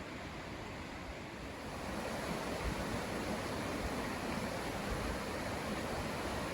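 Gale River water rushing steadily in the late-winter thaw, growing a little louder about two seconds in.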